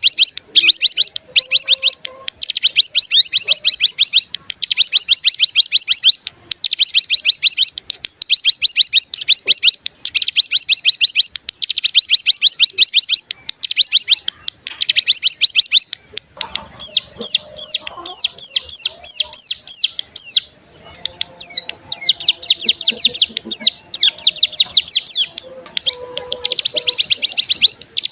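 Ciblek gunung (a mountain prinia) singing its fast buzzing 'bren' trill, one burst of about a second after another with short gaps. This is the call bird-keepers use to provoke other birds into singing. A faint steady high whistle runs beneath, and after about the middle the trills turn slower and more spaced out.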